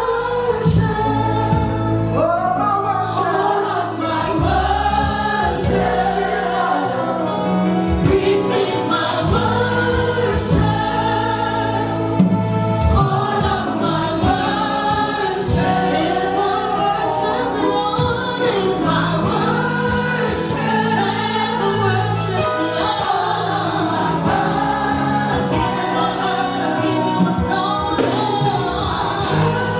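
Gospel choir singing praise and worship music live. The sound is a bit crackly from the camera's own microphone.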